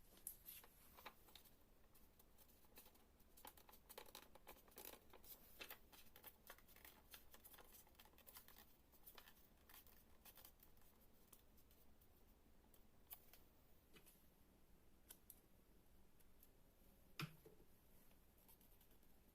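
Faint paper handling: soft, irregular rustles and crisp little clicks of paper being folded and creased by hand, busiest in the first half, with one sharper tap near the end.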